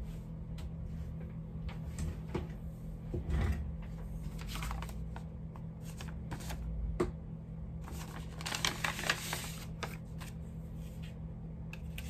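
Paper handling: an envelope being opened and a folded letter taken out and unfolded, with scattered clicks and rustling that is densest about eight to nine and a half seconds in. A steady low hum runs underneath.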